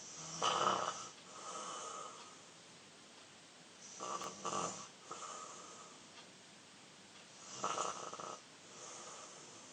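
A 13-year-old boy snoring in his sleep: three loud snores about every three and a half seconds, each followed by a softer breath.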